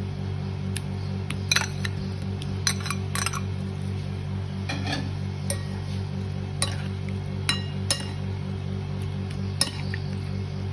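Metal spoon clinking against a ceramic bowl and a glass bowl as vegetables are scraped in and tossed in dressing: a dozen or so sharp clinks at irregular intervals.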